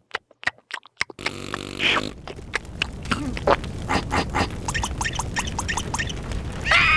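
Cartoon sound effects: a quick run of sharp clicks in the first second, then short wordless vocal noises from the cartoon larvae, mixed with many quick clicking effects.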